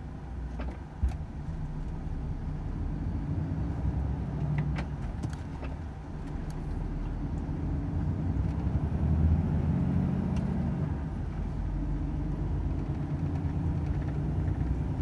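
A Volvo FH 500 truck's six-cylinder diesel engine running under way, a steady low drone that climbs slightly in pitch and level after the midpoint. A few sharp clicks come in the first half.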